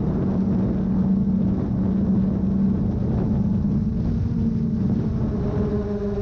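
GoPro Karma quadcopter drone's propellers humming steadily, with wind noise across the microphone; the pitch of the hum shifts slightly about five and a half seconds in.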